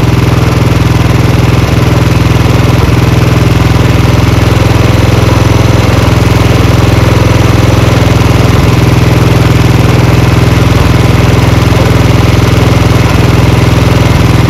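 Royal Enfield Bullet 350's single-cylinder engine idling steadily while its carburettor mixture screw is being turned for tuning.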